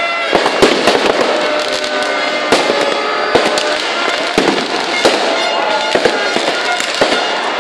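New Year's Eve fireworks and firecrackers going off in rapid, irregular cracks and bangs over a dense street crowd, with music and a few held steady tones underneath.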